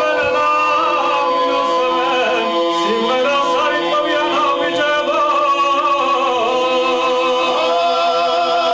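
Men singing a Georgian polyphonic table song: several voices hold steady drone notes while a melody line wavers and moves above them.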